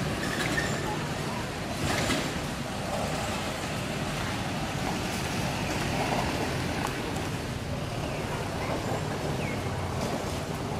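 Steady rushing outdoor background noise, with a short louder burst of noise about two seconds in and a few faint high chirps.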